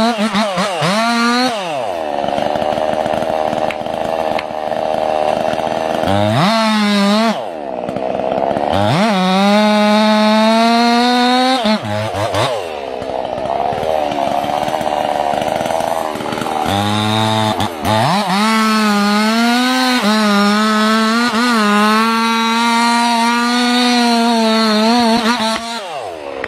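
Two-stroke chainsaw at full throttle cutting into the base of a large conifer trunk, working under load in the felling cut. The engine drops briefly about four times and revs back up each time.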